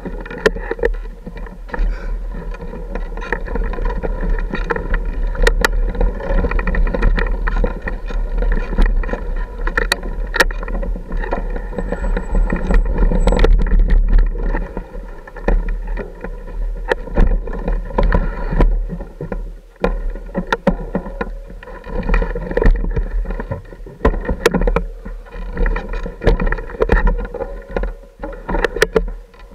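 Off-road motorcycle engine running at low speed over rough ground, the throttle rising and falling, with frequent sharp knocks and rattles as the bike jolts over rocks. Some wind on the microphone.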